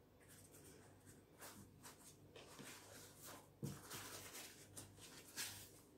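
Faint rustling and crinkling of thin yufka pastry sheets being laid and smoothed by hand over a baking tray, with a soft knock about three and a half seconds in.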